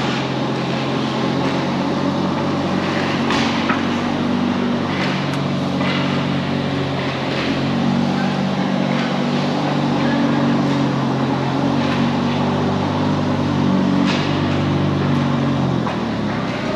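A steady low machine hum made of several pitched tones, stopping near the end, with a few faint sharp knocks over it.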